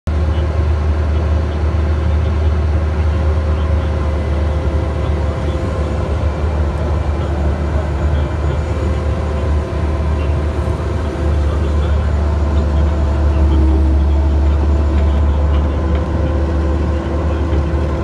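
Engine running steadily at a constant speed, a loud, even low hum heard from inside the cab of the machine.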